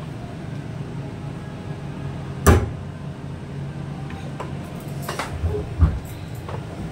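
Kitchen clatter as oil bottles are handled and set down beside a gas stove: one sharp knock about two and a half seconds in, then a few lighter clunks, over a steady low hum.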